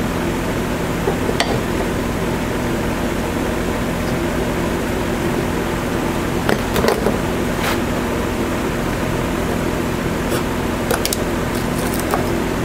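Steady hum of a running motor or fan, with several sharp metallic clinks from a wrench and steel pipe being handled at a bench vise. The loudest clinks come in a cluster about seven seconds in.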